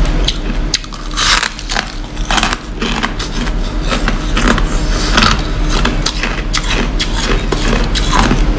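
Crushed ice, a clump of small frozen-together pellets, crunching as it is bitten and chewed close to the microphone: a dense run of irregular sharp crunches.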